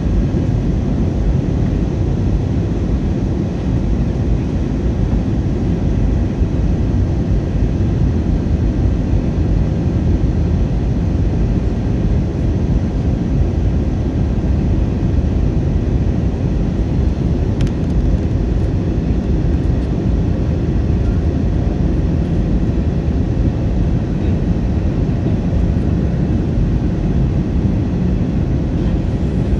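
Steady cabin noise inside an Airbus A320 airliner in descent: the even rush of airflow and jet engine hum, heavy in the low end.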